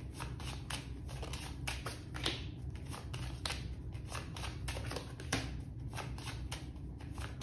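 Deck of cards being shuffled by hand, with many irregular soft clicks and rustles of cards slipping against each other, over a steady low hum.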